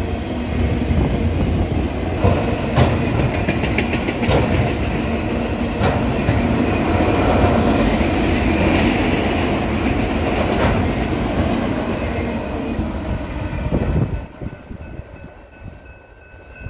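Union Pacific autorack freight train passing at speed: a steady rumble and rattle of the railcars, with sharp wheel clicks now and then. It drops away suddenly about fourteen seconds in as the last car goes by.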